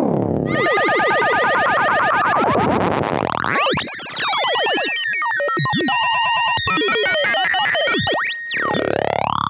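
Brüel & Kjær 1022 oscillator played through an Electro-Harmonix ring modulator pedal: tones sweep up and down as the dial is turned, with mirrored tones gliding in opposite directions. A steady whistle holds underneath for a couple of seconds at a time, and near the end the pitch sweeps quickly up and back down.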